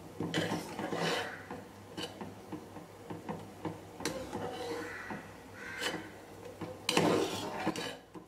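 Perforated metal skimmer scraping and clinking against the sides of an aluminium pressure cooker pot while boiled broad beans are scooped out of the cooking water. There are irregular clinks throughout, with the loudest clatter about seven seconds in.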